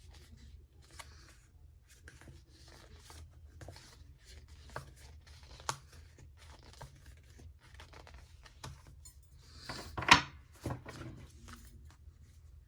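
Tarot cards being handled: a string of soft brushing and scraping sounds, with one sharp snap about ten seconds in.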